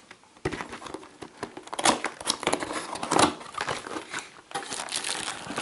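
Cardboard product box being opened and handled by hand: irregular rustling, scraping and crinkling of the packaging, starting about half a second in.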